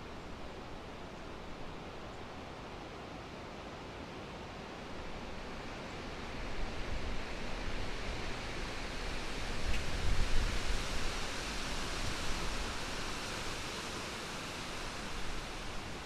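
Wind blowing through the leaves of the trees, a steady hiss that swells into a stronger gust about halfway through. The gust also rumbles low on the microphone.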